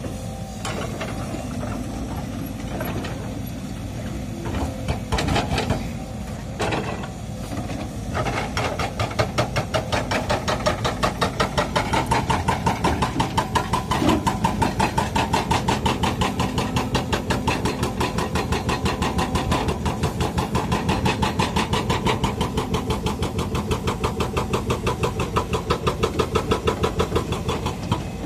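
Sumitomo SH130 crawler excavator's diesel engine running under load while it digs stony ground, with a regular pulsing beat through the second half. A few knocks sound about five to seven seconds in.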